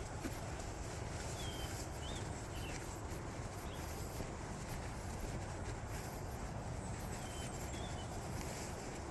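Small birds chirping a few times, short high calls, over a steady rushing noise.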